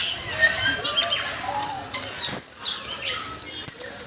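A flock of aviary parrots chattering, many short chirps and warbling calls overlapping one another.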